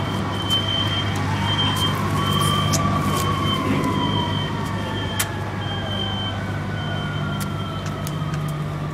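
A siren sounding in a slow wail, its pitch rising and then falling over several seconds, over a steady low engine hum. Smoke detector alarms keep beeping in a high, broken on-off pattern.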